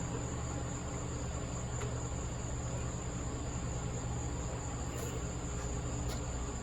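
Steady high-pitched whine over a steady low hum, with a few faint clicks.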